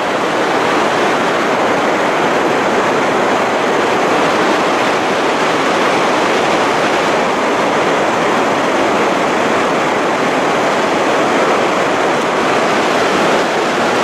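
Large waterfall crashing down onto rocks: a loud, steady rushing roar.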